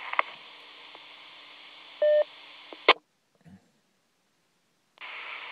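FM two-way radio audio from a Motorola M-120 VHF mobile radio: a steady band-limited carrier hiss from the repeater system, a short beep about two seconds in, then a squelch-tail burst as the carrier drops and the radio goes quiet. Near the end the carrier keys up again with hiss.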